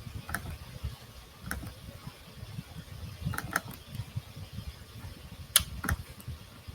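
About half a dozen short, sharp clicks of someone working a computer, scattered irregularly, the loudest a little after five seconds in, over a low background rumble.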